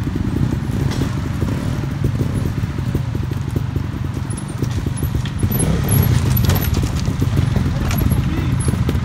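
Trial motorcycle engine running with a rapid low pulsing, getting louder a little past halfway as the throttle opens.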